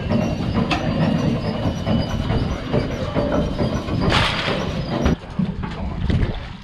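A fishing boat's diesel engine rumbling, with a constant clatter of knocks and rattles from deck work. There is a brief hiss about four seconds in, and the noise drops somewhat after about five seconds.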